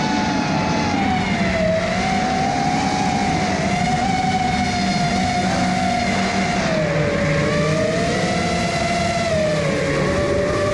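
FPV quadcopter's brushless motors and propellers whining in flight, the pitch sinking and rising as the throttle changes, dropping lowest for a few seconds in the second half and climbing again at the very end.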